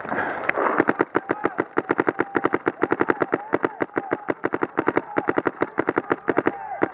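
Paintball marker firing a rapid string of shots close by, about eight a second, starting just under a second in.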